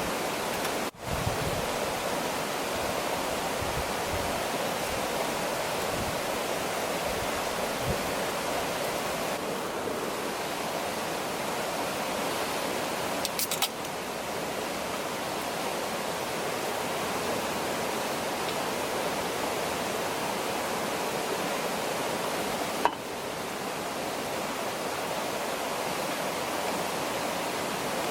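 Steady rushing noise of flowing water, like a stream or river running close by, broken by a few brief dips.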